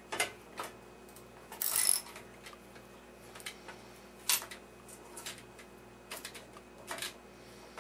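Ratchet wrench clicking in short runs as a nut on an old television's metal chassis is turned, with scattered single metal clicks between. The loudest run of clicks comes about two seconds in.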